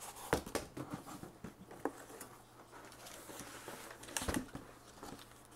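Handling noise from unpacking an LED grow light from its cardboard box: scattered clicks, taps and light rustling, the sharpest near the start and about four seconds in.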